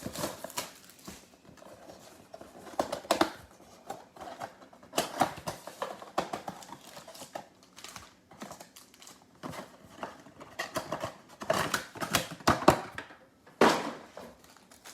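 Plastic wrap crinkling and tearing as a trading-card box is unwrapped and opened, with irregular crackles and sharp taps of cardboard being handled.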